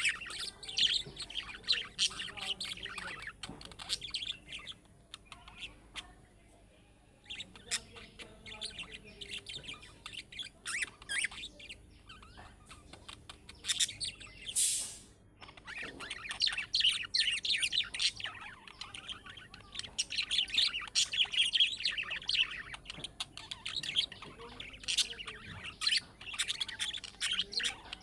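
Budgerigars chirping and warbling in fast, chattering runs. The chatter thins out for a while and comes back busier in the second half. A short hiss cuts through about halfway.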